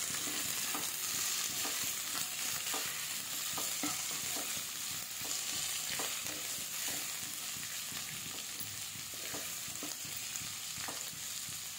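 Sliced cabbage, capsicum and carrot sizzling as they shallow-fry in hot oil in a pan, with a spatula stirring and scraping them in quick repeated strokes, about two or three a second, over a steady hiss.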